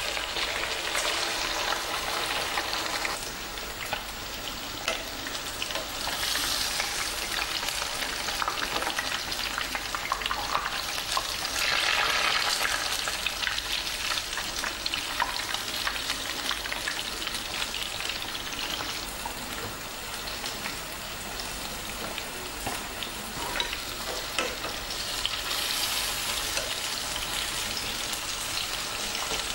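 Foli fish koftas deep-frying in oil over medium heat in a wok, a steady crackling fry that swells louder a few times as pieces go in and are turned with tongs.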